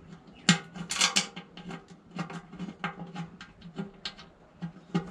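Irregular sharp metallic clicks and clinks of steel sump bolts being handled and finger-started into the oil pan rail of a Ford 351 Cleveland V8. The loudest click comes about half a second in.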